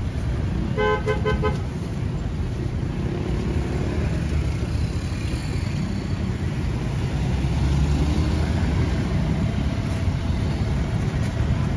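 Steady road-traffic rumble, with a vehicle horn giving a quick run of about five short toots about a second in.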